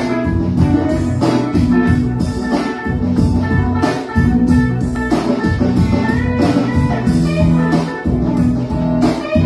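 A live band jamming: guitar played over a drum kit.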